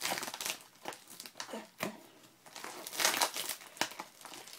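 Crinkly plastic packaging being handled and pulled open, rustling in irregular bursts.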